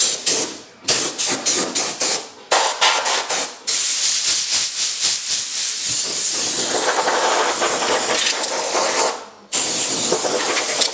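Hand tool scraping and scrubbing at the bare sheet metal of the car's engine bay, working off old seam sealer. First a run of short rapid strokes with brief pauses, then continuous scrubbing from about four seconds in that stops sharply about a second before the end.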